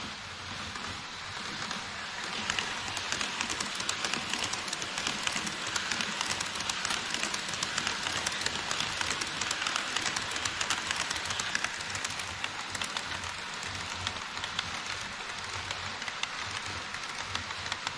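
HO scale model trains rolling past close by: an E5 Shinkansen model and an EF66 locomotive with Koki 104 container wagons. Their metal wheels make a rapid, dense clicking and rattling over the Kato Unitrack rail joints. It grows louder about two seconds in and eases somewhat in the last few seconds.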